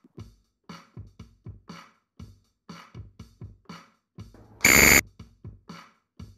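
Countdown-timer background music: a rhythmic electronic drum beat of short hits. About four and a half seconds in, a loud buzzer sounds for about half a second, signalling that the answer time is up.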